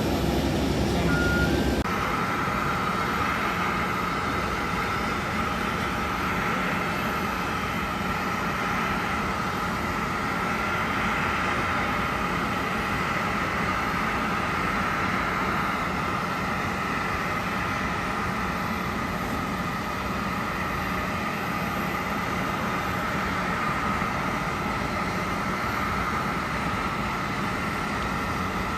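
Jet aircraft engine noise on an airport apron: a steady high whine over a rumble.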